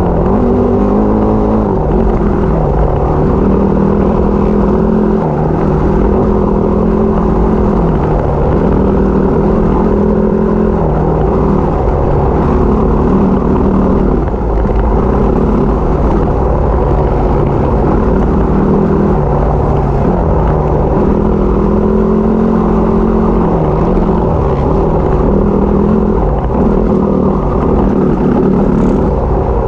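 Yamaha WR250 trail bike engine being ridden off-road, its revs rising and falling every second or two as the throttle opens and closes, over a steady low rumble.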